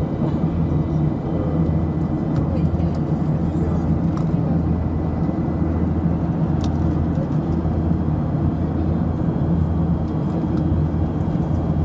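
Steady drone of a Boeing 737-700's CFM56-7B turbofan engines heard inside the passenger cabin during the climb after takeoff, with a faint thin high tone running through it.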